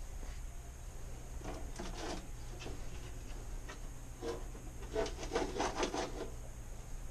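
Oven door being taken apart by hand: parts rubbing and scraping, with two clusters of light clicks and knocks, the second and louder one about four to six seconds in.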